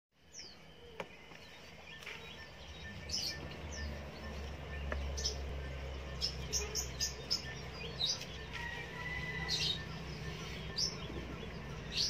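Birds chirping: short, high chirps, some gliding downward, scattered irregularly and coming more often from about three seconds in, over a low rumble.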